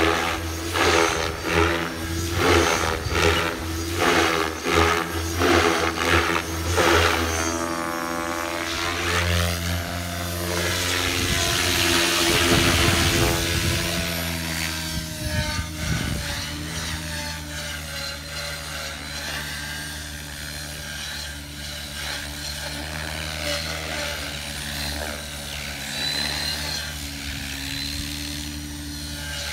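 Align T-Rex 550X electric RC helicopter flying: the whine of its brushless motor and the drone of its rotor blades. For the first several seconds the sound pulses about one and a half times a second. It swells and sweeps as the helicopter passes close around twelve seconds in, then settles to a steadier, fainter drone.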